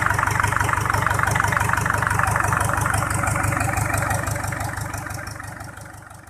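Rebuilt Mitsubishi PS120 diesel engine running at idle with a steady, even clatter, fading out over the last couple of seconds.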